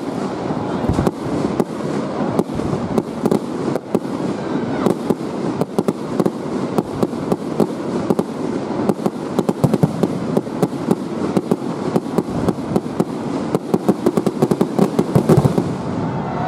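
Fireworks going off: a continuous rapid crackle of many small bangs and pops, becoming denser and louder a few seconds before the end.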